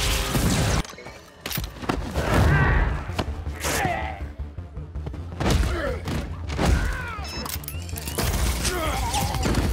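Film soundtrack mix: music under action sound effects, with a rapid string of weapon blasts and heavy thuds.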